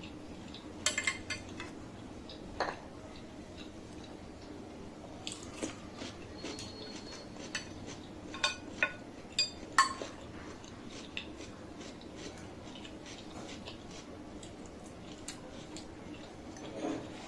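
Cutlery clinking and scraping against a plate in scattered sharp clicks, one with a brief ringing tone. The loudest come as a run of four about halfway through.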